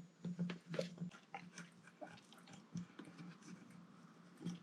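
Faint, scattered clicks and scrapes of small metal parts as a snap ring is worked into a motorcycle brake caliper bore by hand, with short low grunts between them.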